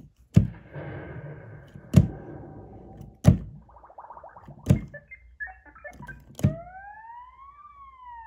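Digital piano sounding odd noises instead of normal notes as its keys are pressed: five sharp hits, each trailed by a noisy wash. Near the end a key sets off a siren-like tone that glides up and then down in pitch.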